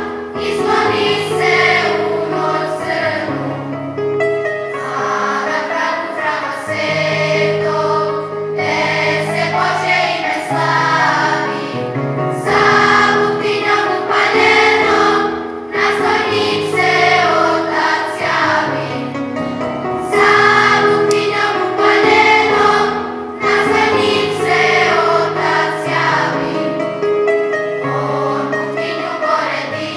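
Children's school choir of girls and boys singing a song in phrases. Sustained low accompanying notes are held beneath the voices.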